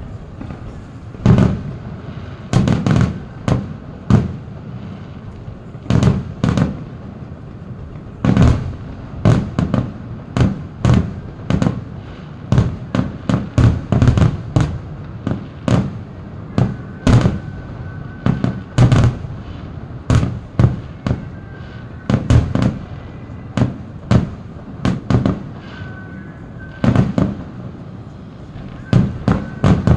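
Aerial fireworks shells bursting in a continuous display: sharp bangs at irregular intervals, often several in quick succession, each trailing off in a short low echo.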